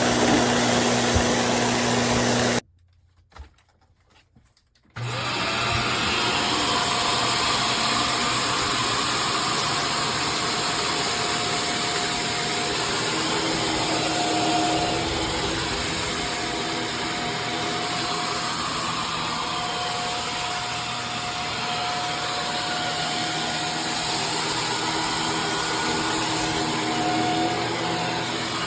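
Bissell CleanView upright bagless vacuum cleaner running steadily. It drops out to near silence for about two seconds a few seconds in, then runs steadily again.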